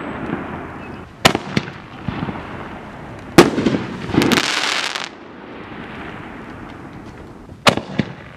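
HoneyBoom Detonator 18 canister-shell fireworks cake firing: about six sharp bangs of shells launching and bursting, the loudest about three and a half seconds in. A hiss follows it for almost a second, and two more bangs come close together near the end.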